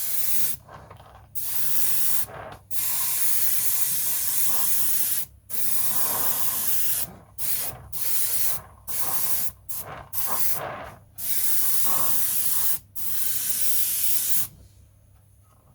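Airbrush spraying a weathering wash onto a model tank's turret. It goes in about ten on-off bursts of hiss as the trigger is pressed and released, and stops about a second before the end.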